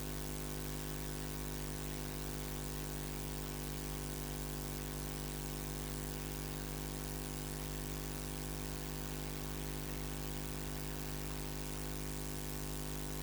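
Steady electrical hum and hiss from a dead audio feed, with no speech or other sound. The level stays constant throughout.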